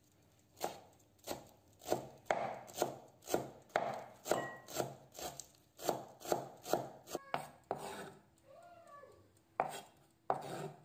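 Kitchen knife chopping fresh coriander on a wooden cutting board, sharp, even strokes about two a second. Near the end the chopping stops and a few scattered knocks follow.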